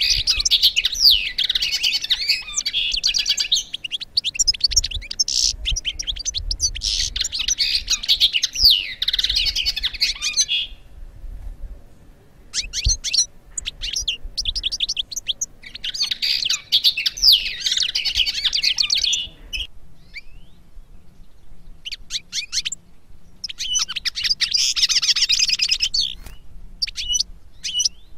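Small finch singing: three long bouts of rapid, high twittering and trilling song, the first lasting about ten seconds, with scattered short chirps in the pauses between bouts.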